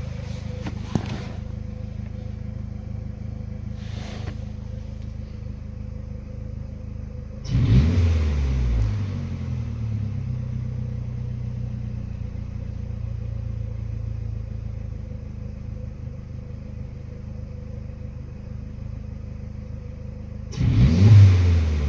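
Mazdaspeed3's 2.3-litre turbocharged four-cylinder idling with a slightly rough idle, the fault the owner is trying to pin-point. The throttle is blipped twice, about a third of the way in and near the end, each time revving up briefly and settling back to idle.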